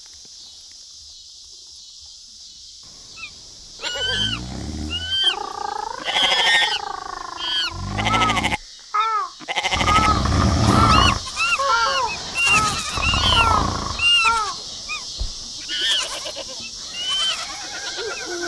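Goats bleating over and over, many separate wavering calls that begin about four seconds in, over a steady high hiss of nature-recording ambience.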